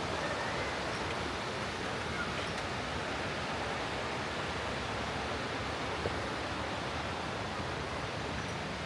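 Steady, even rush of water from a waterfall or cascading creek, with no change in level.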